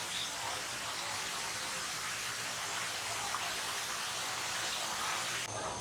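A steady rushing hiss, like falling water or wind, that cuts off abruptly near the end.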